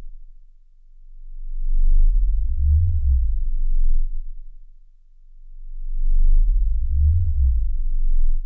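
Deep electronic tones over a steady low hum. They swell up over about a second and a half, hold, then fall away, twice in a row, and cut off just at the end.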